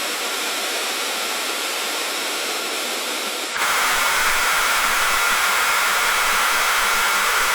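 Steady rushing of a river stream. About three and a half seconds in, the sound cuts abruptly to a louder, fuller rush, a splice to a different stretch of water recording.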